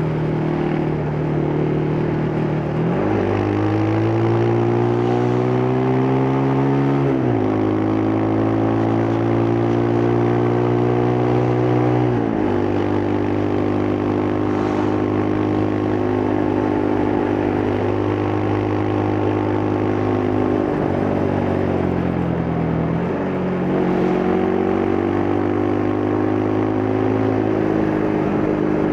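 Yamaha Scorpio's single-cylinder four-stroke engine pulling under way, heard through its exhaust. The engine note climbs as the throttle opens a few seconds in, drops sharply twice at upshifts, then eases off and picks up again later.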